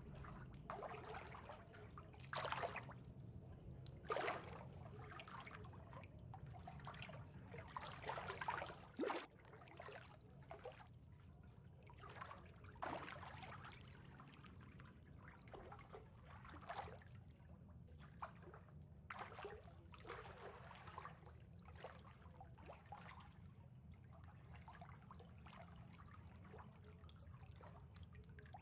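Faint swimming-pool water trickling and lapping, with small irregular splashes over a steady low rumble.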